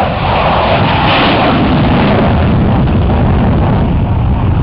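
F-16 fighter jet making a low, fast fly-by: a loud jet roar with a high rushing hiss that peaks about a second in, over a deep rumble that carries on as the jet moves away.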